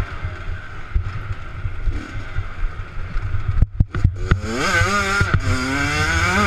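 Off-road minibike engine under the rider, with low rumble and knocks as the bike runs over the trail. About four seconds in the sound briefly drops, then the engine revs up with a rising, wavering pitch.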